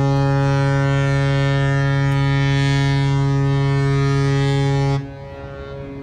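Cruise ship's horn sounding one long, loud, deep blast that cuts off abruptly about five seconds in, leaving quieter harbour background.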